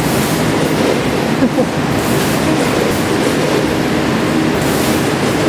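Steady din of food-factory packing-line machinery: an even, continuous rushing noise with a faint hum underneath.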